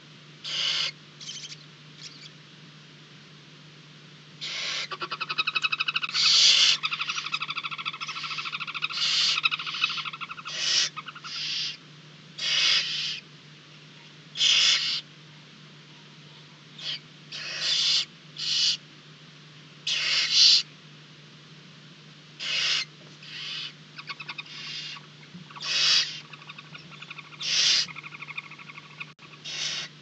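Barn owl nestlings calling in the nest box: a string of short, raspy hisses every second or two, with a stretch of rapid, pulsed twittering from about five to eleven seconds in. A low steady electrical hum runs underneath.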